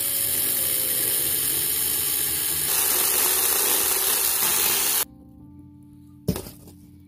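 Power saw cutting through the trunk of a fir Christmas tree, a loud hissing buzz that cuts off suddenly about five seconds in. Background music plays underneath and carries on after the saw stops, with one sharp knock near the end.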